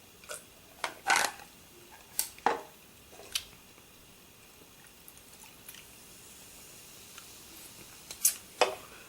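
DVD packaging being handled: a handful of short, sharp crinkles and clicks in the first three seconds or so, then a quiet stretch, then two more close together near the end.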